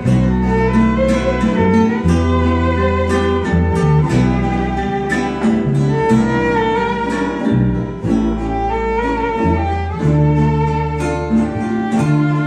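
Venezuelan string ensemble playing: a violin carries a wavering, held melody over strummed cuatros and guitar, with bass notes that change every second or two.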